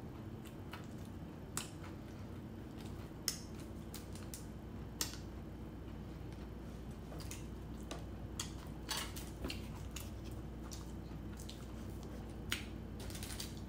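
Close-up eating sounds: scattered sharp clicks and smacks from chewing a scone, and a small metal spoon tapping against the dishes and a cream cheese tub, over a low steady hum.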